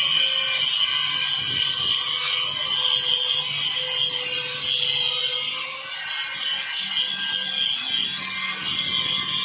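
Electric angle grinder with an abrasive disc grinding the surface of a thick steel bracket plate: a steady high whine with the rasp of the disc on the metal, its pitch wavering slightly.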